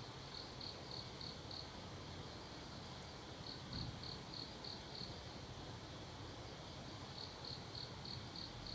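An insect chirping in short phrases of five or six even pulses, about three a second, with a pause of roughly two seconds between phrases, over a faint low background hum.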